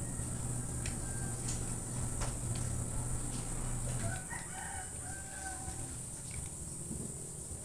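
A rooster crowing once, starting about four seconds in. Under it runs a steady low hum that fades as the crow begins, with a few small metal clicks from a screwdriver working on a motorcycle fuel-tap part earlier on.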